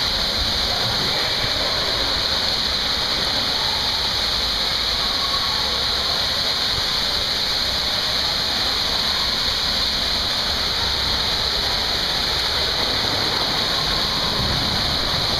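Water rushing down an enclosed water-slide tube as a rider slides through it: a steady, unbroken hiss of flowing water.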